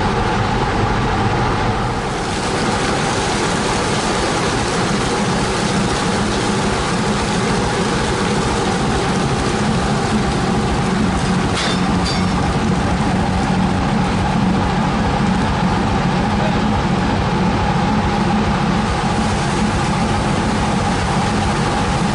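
A fishing trawler's engine and hydraulic deck machinery running with a steady drone and hum while a full cod-end of redfish is hoisted over the fish hatch. A short knock comes about twelve seconds in.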